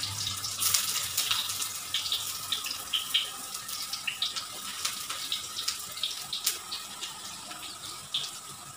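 Chopped garlic and onion sizzling and crackling in hot oil in a wok, the sizzle slowly dying down.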